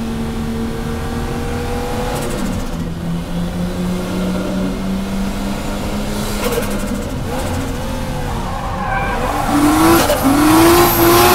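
Heard from inside the cabin, a Toyota JZX-series drift car's straight-six engine runs at a steady pitch. Its note drops with a gear change about two seconds in and then holds. Near the end the engine revs up and down over tyre squeal as the car slides into a drift, and this is the loudest part.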